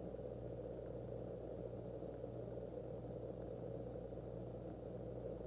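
Steady low mechanical hum with a faint hiss, running evenly without change.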